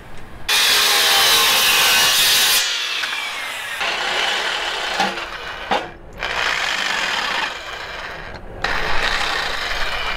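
Corded jigsaw cutting a curve in steel plate, its blade rasping through the metal in several stretches with brief breaks. The blade is lubricated with wax to help it cut.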